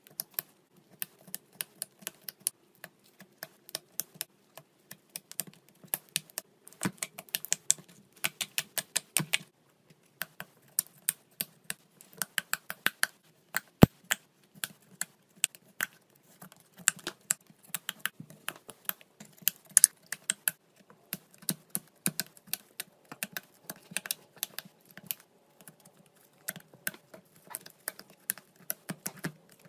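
Fingers poking and pressing slimes in a plastic compartment tray, giving rapid wet clicks and small air-bubble pops in uneven clusters, one sharper pop about halfway through.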